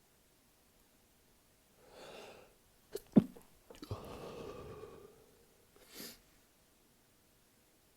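A person sneezing, part of a sneezing fit. A breath comes about two seconds in, then a sharp, loud sneeze just after three seconds trails into a longer voiced exhale, and a short breath follows near six seconds.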